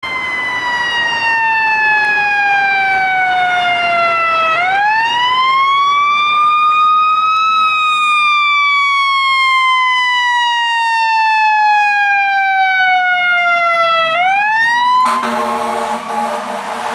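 Fire engine siren wailing in long, slow sweeps, the pitch falling over several seconds and then climbing back up, twice. About two seconds before the end the siren stops and a steady air horn blast takes over.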